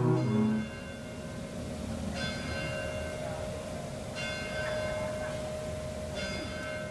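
A church bell tolling slowly, struck about every two seconds, with a steady tone ringing on between strikes.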